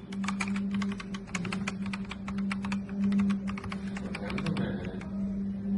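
Fast typing on a K68BT mechanical keyboard with linear red switches: a rapid stream of keystroke clicks that thins out near the end. A steady low hum runs underneath.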